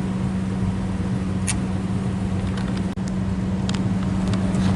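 Steady low machine hum, with a few faint clicks of small handling.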